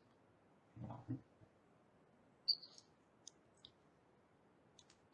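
Faint, scattered computer mouse clicks: one sharper click about two and a half seconds in and a few thin ticks after it, with a short low sound about a second in.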